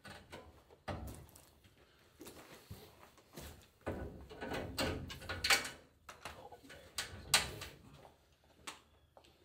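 Scattered knocks, clicks and rattles of tools and metal parts being handled while fitting a roll-up shop door, with a couple of sharper clanks in the middle.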